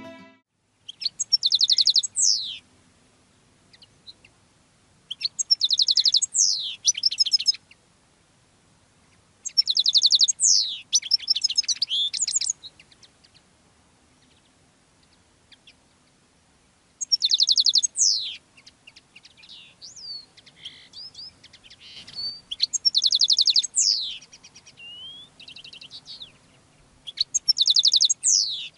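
Caged male European goldfinch singing its courtship song: bursts of rapid, high, twittering trills, about six phrases of two or three seconds each with pauses of a few seconds between them, and looser single notes in the middle stretch.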